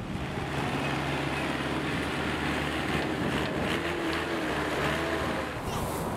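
Outdoor ambience dominated by a steady hum of vehicle engines and a wash of noise, with a faint wavering tone a little past the middle.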